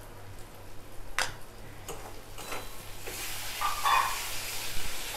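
Metal spatula stirring spice paste in a steel kadai, with a few sharp clicks of the spatula on the pan early on. From about three seconds in, the masala sizzles as it fries in hot oil.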